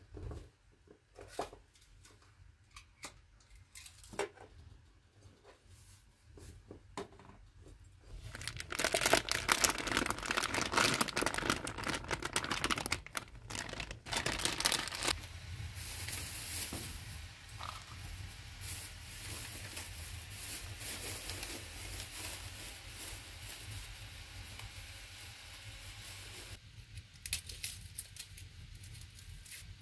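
Food-prep handling sounds: small knocks and rustles while a backpack is searched, then from about eight seconds a loud stretch of plastic wrapping crinkling and tearing as the chicken is unpacked. This eases into a softer steady rustling hiss, and near the end come light clicks of a knife working an onion.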